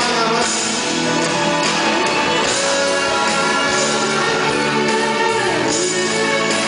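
Live band playing an instrumental passage of a Spanish-language pop ballad, with no singing.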